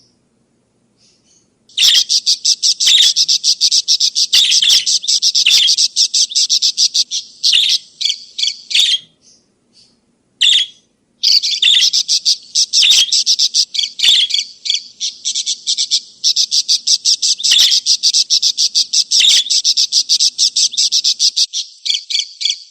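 Budgerigar chattering: a fast, unbroken run of high chirps. It starts after a couple of seconds of quiet and breaks off briefly around the middle.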